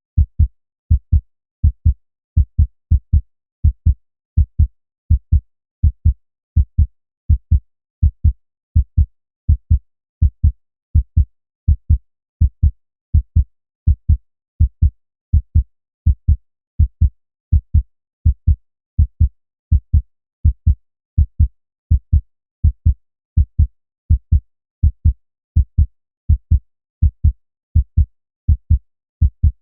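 Human heartbeat: low lub-dub thumps in pairs, a little more than one beat a second, in a steady unchanging rhythm.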